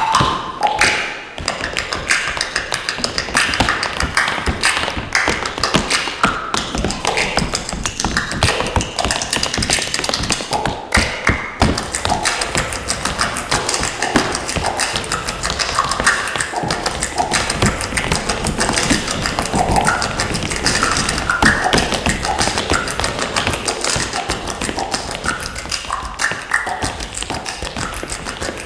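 Tap shoes striking a stage floor in fast, dense rhythms of taps, with short breaks about a second in and around eleven seconds, over recorded backing music.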